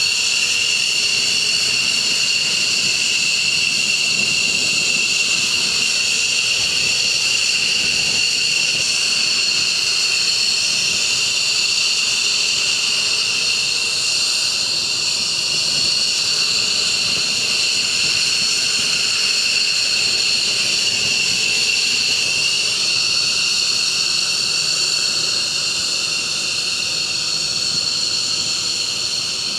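Fighter jet engine running steadily, a high, even turbine whine over a rushing noise.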